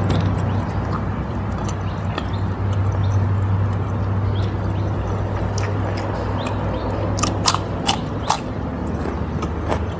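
Close-up eating sounds: wet chewing and small mouth clicks, then a few loud crunchy bites into a fresh vegetable about seven to eight seconds in. A steady low hum runs underneath.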